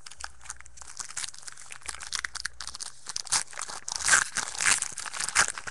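Crinkling and crackling of plastic wrapping and trading cards handled in the fingers. It grows louder about three seconds in.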